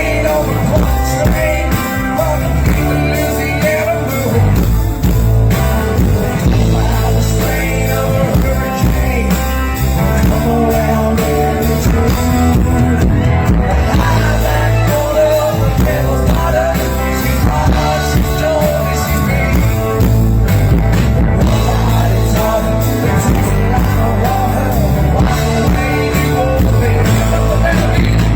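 A live rock band playing, with guitars, bass and drums, in a stretch without lyrics.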